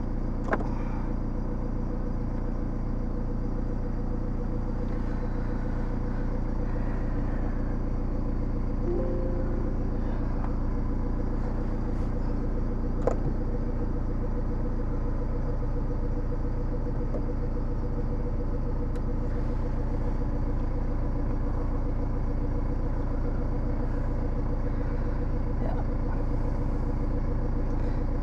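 Steady low mechanical hum inside a car's cabin with the ignition on, broken by two short clicks.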